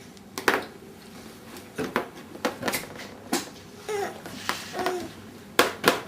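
Irregular sharp knocks and clicks of tableware being bumped and handled on a dinner table, with a toddler's short babbling sounds twice in the middle.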